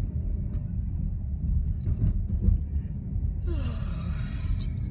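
Steady low rumble of a car's engine and road noise heard inside the cabin while driving slowly. About three and a half seconds in, a brief hissing sound falls in pitch.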